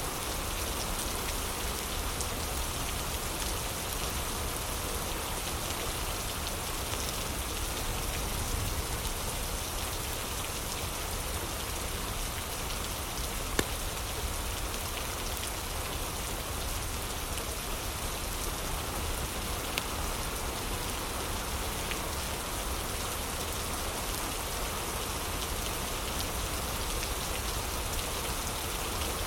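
Heavy rain falling steadily, a dense even hiss of drops. A couple of sharp single clicks stand out, one about halfway through and a fainter one a few seconds later.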